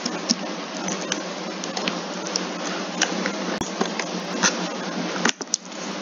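Scattered computer mouse and keyboard clicks over a steady background hiss.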